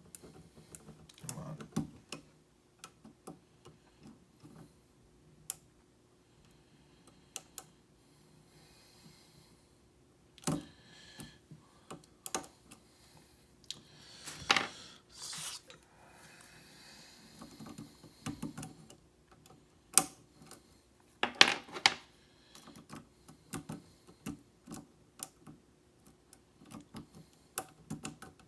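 A steel hook pick and tension bar working the pins of a five-pin pin-tumbler challenge lock held in a vise: irregular small metal clicks and taps as pins are lifted and set, a few of them louder.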